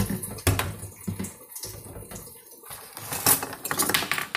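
Dishes and cutlery clinking and knocking together in a kitchen sink as they are washed by hand under a running tap. There are several sharp clinks, the loudest a little past three seconds in.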